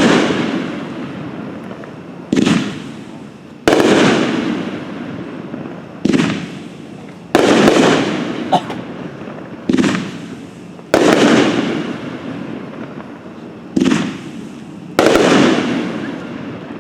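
Red Rhino Skyshooter 15-shot firework cake firing shot by shot: each shot is a launch thump followed about a second later by a louder aerial break that fades away over a couple of seconds, with a new shot every three to four seconds.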